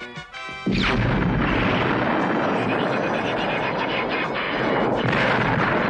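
Cartoon sound effects of an energy-weapon blast and fire: a short buzzing zap, then, under a second in, a sudden loud explosion that runs on as a steady rumble of burning.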